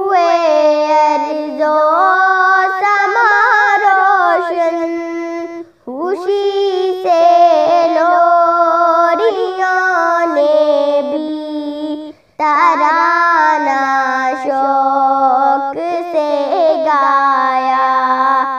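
A young girl singing a naat unaccompanied, in long held phrases with wavering ornaments, pausing for breath about six and twelve seconds in.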